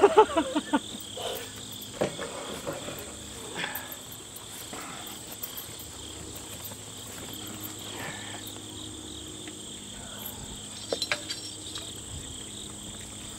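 Steady high-pitched insect chirring, such as crickets in the grass, with a few light knocks and clinks scattered through it.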